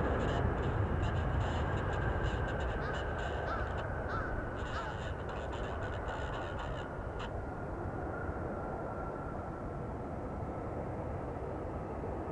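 Jet engines of a Boeing 787-8 rumbling on the landing rollout, slowly fading, with a faint whine that drifts lower as the engines spool down. Crows caw a few times in the first half.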